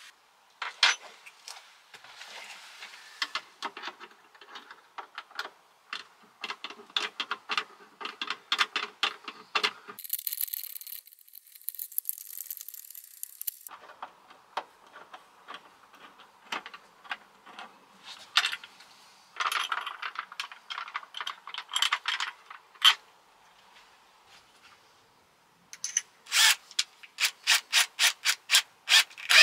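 Hand work dismantling a campervan sink unit: a string of knocks, clicks and scraping rubs as fittings and a wooden board are handled. Near the end comes a quick run of about a dozen sharp, evenly spaced clicks.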